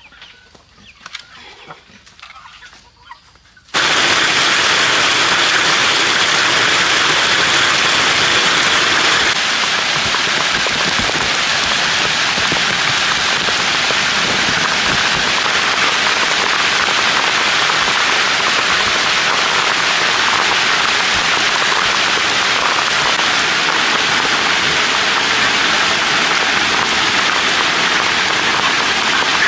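Heavy rain pouring down steadily. It cuts in abruptly about four seconds in, after a few quiet seconds with only faint sounds.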